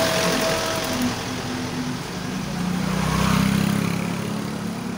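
Street traffic: a small box truck drives past close and pulls away, its engine noise swelling to its loudest about three seconds in and then fading.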